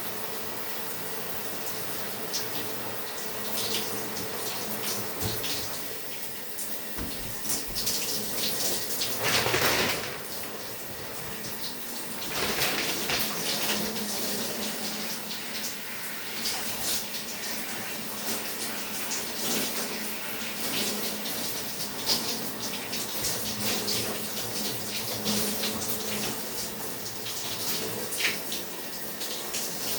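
Shower running, water spraying and splashing. The splashing swells louder about eight to ten seconds in and again around twelve to fourteen seconds in.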